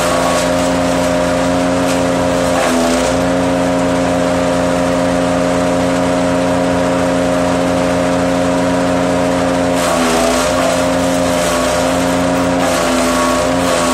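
Wood chipper running steadily, its motor hum under the noise of wood being chipped. The motor's note sags briefly about three seconds in and again about ten seconds in, as it takes load from the material fed in.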